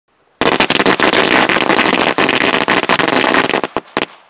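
A string of firecrackers going off: a dense, rapid run of loud cracks that starts suddenly, then thins to a few separate bangs near the end.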